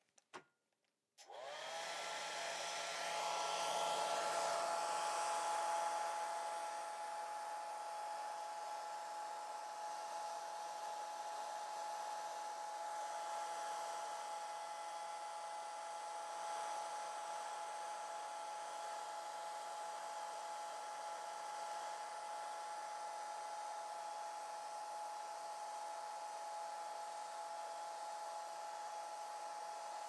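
Handheld hair dryer switched on about a second in. It spins up and then runs steadily: a rush of air with a steady motor whine over it.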